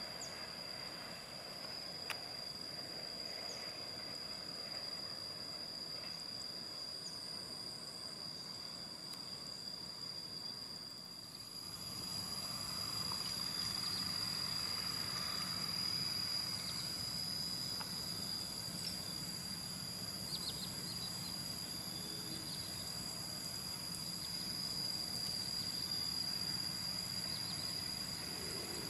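Outdoor ambience with insects droning steadily at a high pitch; about twelve seconds in a second, higher insect tone joins and the background grows slightly louder.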